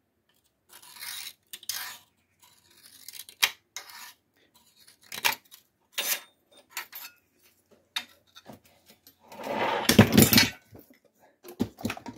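Metal-on-metal handling at a bench vice: a steel scriber scratching along a steel plate, then separate light clinks. About ten seconds in comes a louder, longer scraping clatter as the plate is set against the vice jaws.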